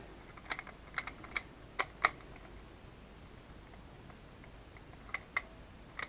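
Sharp plastic clicks from the pins and dials of a custom magnetic Rubik's Clock being worked during a speed solve: a quick run of about six clicks in the first two seconds, a pause, then two more near the end.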